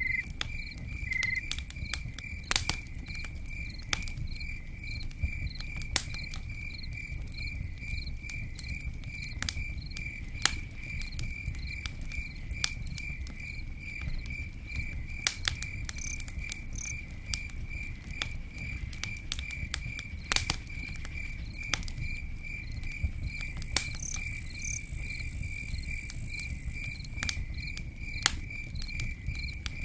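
Campfire crackling and popping, with irregular sharp snaps over a steady low rumble of burning. A cricket chirps steadily throughout in an even, rapid rhythm.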